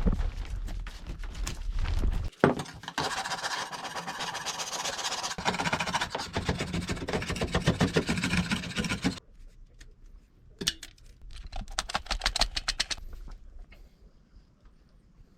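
Scrubbing a bathtub: quick back-and-forth rasping strokes, one long stretch of scrubbing followed by a shorter burst a few seconds later.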